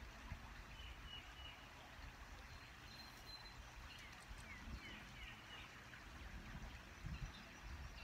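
Quiet outdoor ambience with a low rumble and a few faint bird chirps: short high notes, then a handful of quick downward-sliding chirps about halfway through.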